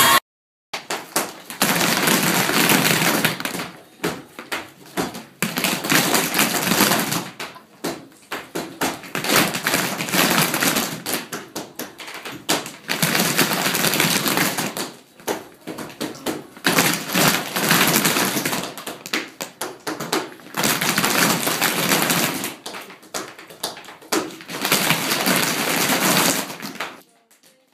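A group of young children tap dancing in tap shoes on a wooden floor: the metal taps clatter in quick runs of clicks a couple of seconds long, with short pauses between runs.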